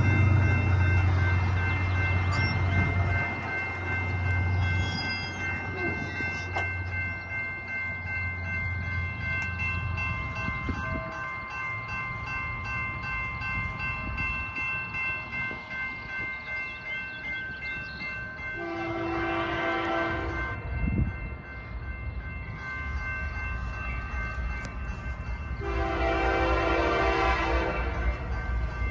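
Railroad grade-crossing bells ringing steadily while an approaching BNSF GE C44-9W freight locomotive sounds its air horn in two blasts of about two seconds each, one about two-thirds of the way in and one near the end. A low rumble fades away over the first several seconds.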